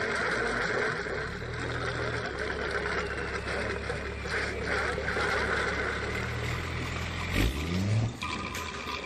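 Volkswagen Worker 15.180 truck's diesel engine running with a steady low rumble. About seven seconds in there is a thump and a short rising rev, and a steady high tone starts near the end.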